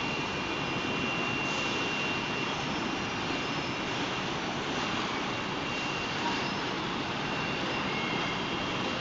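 Steady running noise of factory-floor machinery and powered roller conveyors, a constant whir with a thin high-pitched whine held through it.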